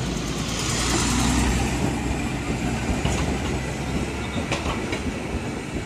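A city bus drives past close by, then a tram rolls across the junction. Its wheels clack over the rail joints, giving a few sharp clicks.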